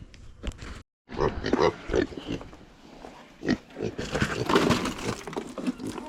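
Farm animals eating close by: repeated crunching and chewing with snorts and rooting noises. A brief dropout about a second in.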